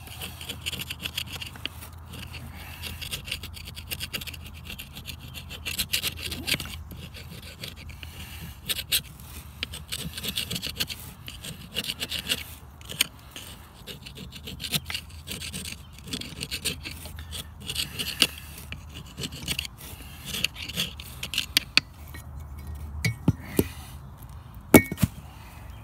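A screwdriver blade scraping an old paper gasket off a metal pump seal plate in irregular short strokes, with small clicks and a few sharp knocks near the end.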